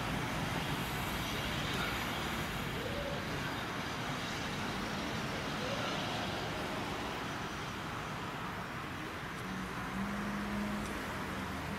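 Steam locomotive C22, a 1902 Beyer Peacock 2-6-0, moving slowly over the rails, with a steady hiss of escaping steam over a low rumble.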